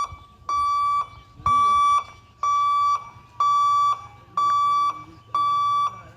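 Level-crossing warning hooter sounding a repeating electronic beep, about one half-second beep each second, warning of an approaching train.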